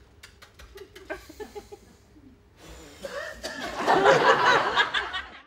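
Theatre audience laughing, swelling from quiet to loud laughter about three seconds in. A few light clicks and a faint voice come before it.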